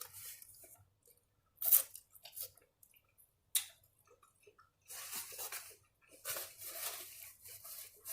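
A person chewing and biting tacos close to the microphone, with a few sharp crunchy clicks in the first half and longer stretches of wet chewing near the end.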